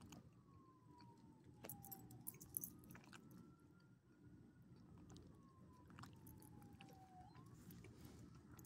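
Faint siren wailing slowly, its pitch sliding down and then sweeping back up twice. Scattered small clicks and crunches from a small dog chewing a treat come through over it.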